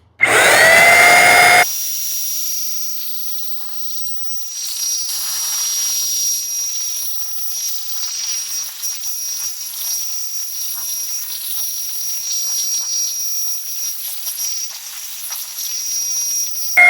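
Electric paint sprayer starting up with a rising whine, then spraying with a steady hiss and a thin high whine. Near the end it surges and winds down with a falling pitch.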